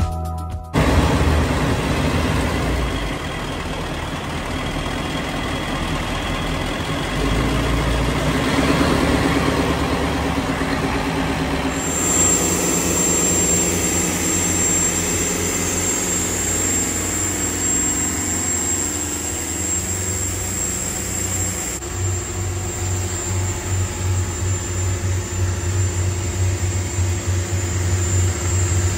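Cheoy Lee 42 sportfisher's engines running at speed. For about ten seconds in the middle they are heard from inside the engine room, with a steady high-pitched whine over the running.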